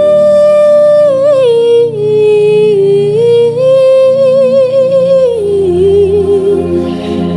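A woman singing a wordless melody in long held notes with a slight vibrato. The pitch steps down about two seconds in and again just past five seconds, over a steady low instrumental drone.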